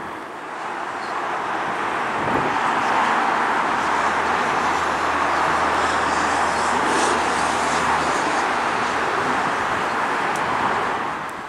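Boeing 777-300ER's twin GE90 turbofan engines at high thrust on the runway: a steady jet rush that swells about a second in and falls away near the end.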